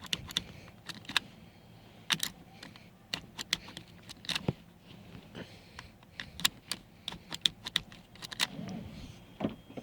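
Seat belt tongue clicking into and out of a 1997 Ford F-150 seat belt buckle again and again, with the metal latch plate rattling in between: sharp, irregular clicks, sometimes two in quick succession. The buckle is latching again now that its stuck lock has been freed.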